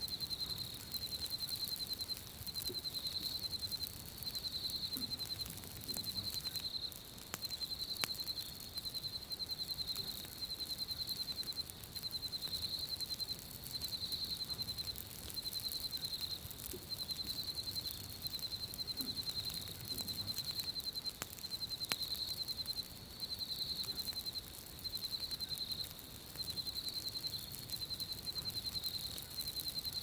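High-pitched, insect-like chirping in rapid pulsed trains of a second or two, repeating with short gaps throughout. Under it a campfire gives an occasional sharp crackle.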